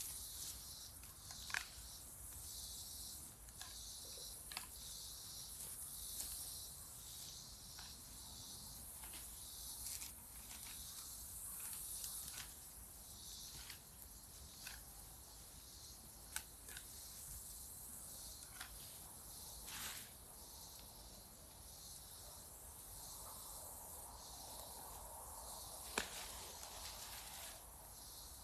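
Insects chirring steadily in a high-pitched hiss, with a few short sharp clicks and snaps scattered through.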